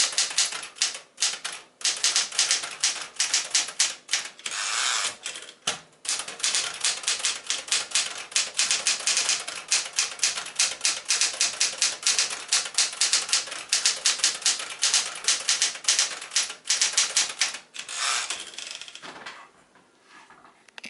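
A 1975 Smith-Corona Galaxie Twelve manual typewriter being typed on fast: a rapid, dense clatter of keystrokes with a few brief pauses, stopping about nineteen seconds in.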